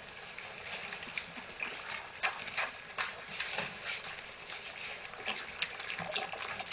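Four-week-old puppies lapping and slurping together from a plastic food bowl: a fast, irregular run of small wet clicks and ticks.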